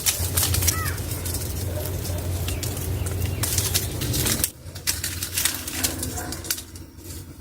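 Rustling and crackling handling noises over a low steady rumble, with a short bird chirp about a second in. The sound changes abruptly past the middle.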